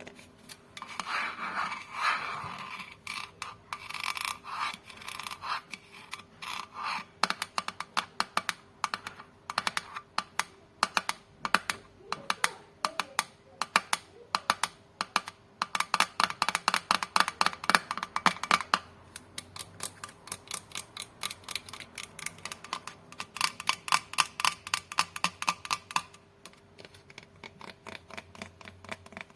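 A glass coffee cup being tapped in quick trains of light taps, each tap ringing briefly, with rougher scratching on the glass in the first few seconds. The tapping comes in bursts that speed up to a dense patter for several seconds at a time.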